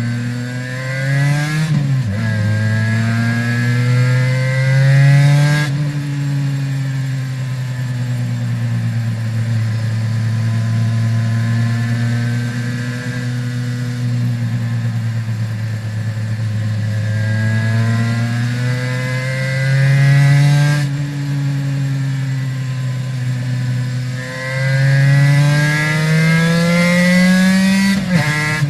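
Aprilia RS 250's two-stroke V-twin with Arrow exhausts, revving up through the gears with a few quick upshifts where the pitch climbs and then drops, and holding a steadier pitch through the middle stretch.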